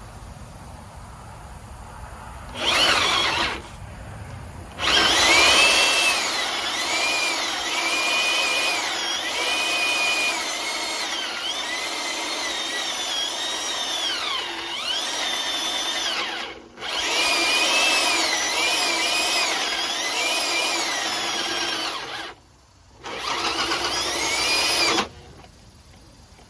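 Handheld power drill running in bursts: a short one, then a long run with two brief pauses. Its motor whine wavers up and down in pitch.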